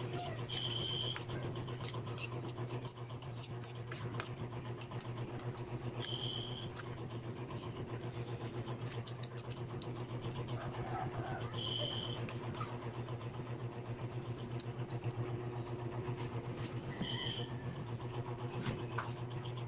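A metal spoon stirring stir-fried chicken and vegetables in an aluminium wok, with scattered clicks and scrapes against the pan, over a steady low mechanical hum. A short high chirp repeats about every five to six seconds.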